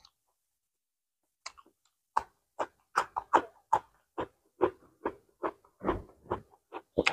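Close-miked chewing of a mouthful of bánh cuốn rice rolls with herbs: wet smacks and clicks about three a second, starting about two seconds in.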